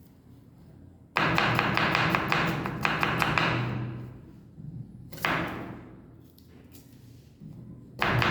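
Kitchen knife chopping rapidly on a cutting board, a quick run of taps. It starts about a second in and goes for about three seconds, comes back briefly about five seconds in, and starts again near the end.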